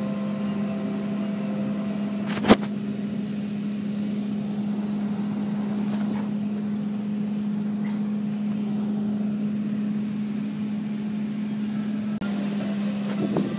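Steady low hum inside the cabin of an Airbus A380 taxiing to the gate, with one sharp click about two and a half seconds in.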